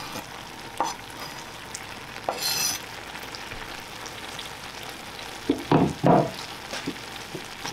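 Penne in butter and pasta water sizzling steadily in a stainless steel frying pan as diced raw salmon is scraped off a wooden board into it with a knife. A short scrape about two and a half seconds in and a few loud knocks near the end.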